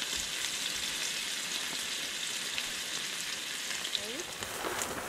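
Food frying, a steady sizzle with fine crackles, with a few faint knocks near the end.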